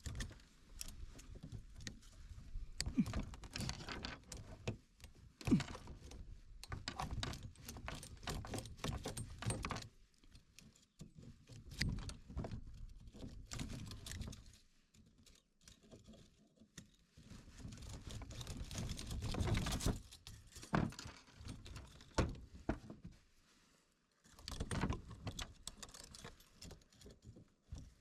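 Metal clinking, rattling and tapping in uneven stretches with short quiet gaps: hand tools and wire working on a folding cart's broken front wheel to free it from its mount.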